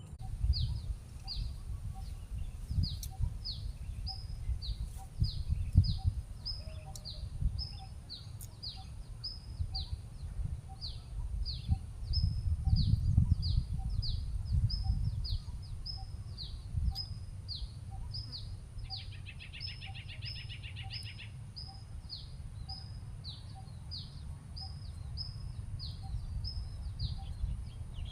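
A songbird repeating a short, high chirp that falls in pitch, over and over in a steady series. A second bird gives a brief buzzy trill about two-thirds of the way through. An uneven low rumble runs underneath.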